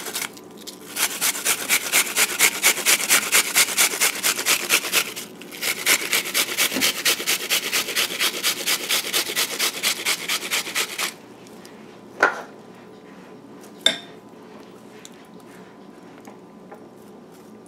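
Onion being grated on a flat metal hand grater: quick, even rasping strokes about five a second, in two runs with a short pause between, stopping about eleven seconds in. Two light knocks follow.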